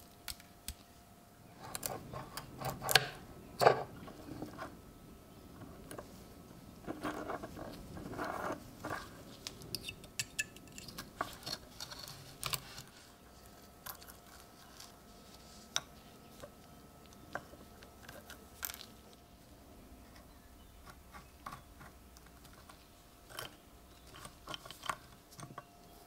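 Gloved hands handling a rusty antique switchblade knife: scattered small clicks, taps and scrapes of metal and glove, with the loudest clicks about three to four seconds in.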